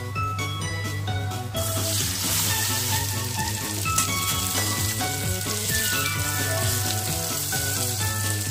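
Paneer cubes sizzling as they fry in oil in a kadai, the sizzle starting about a second and a half in, over background music.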